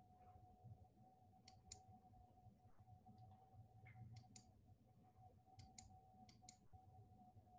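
Near silence with a faint steady tone, broken by about four pairs of short, sharp clicks.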